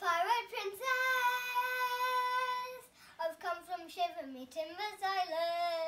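A young girl singing, with short gliding phrases and two long held notes. The first held note starts about a second in and lasts about two seconds; the second starts near the end.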